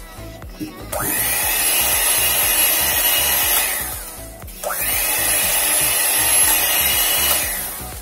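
Electric hand mixer beating cake batter in a glass bowl. Its motor whine spins up about a second in and winds down near the middle. It starts again just after and winds down near the end.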